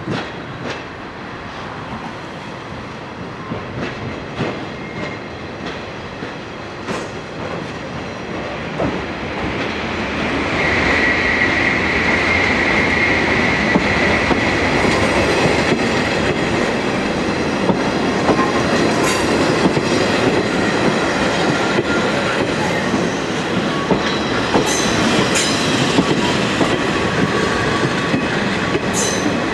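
Train of KiHa 40 series diesel railcars rolling by, wheels clicking over rail joints. It grows louder about ten seconds in, with a high steady wheel squeal for a few seconds.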